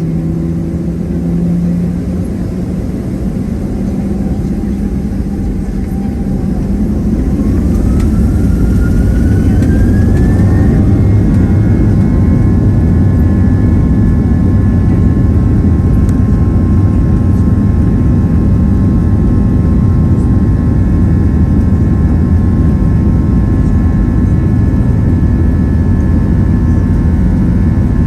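Boeing 737-700 jet engines (CFM56-7B), heard from inside the cabin, spooling up for the takeoff roll. A whine rises in pitch over about four seconds as the sound grows louder, then holds steady and loud over a deep rumble.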